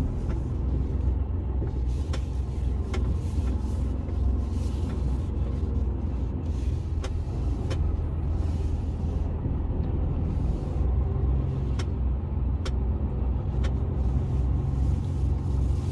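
Mercedes-Benz truck's diesel engine running at low speed, a steady low rumble heard inside the cab, with a few faint sharp clicks now and then.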